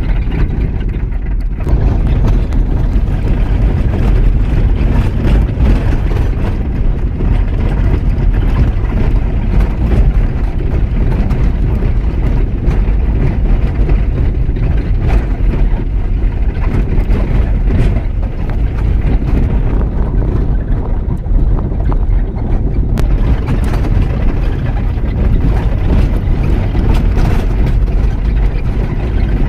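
Vehicle driving along a murram dirt road: a steady, loud rumble of engine and road noise.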